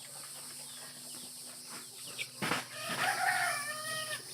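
Young chickens calling: a drawn-out, slightly falling call about three seconds in, just after a brief knock.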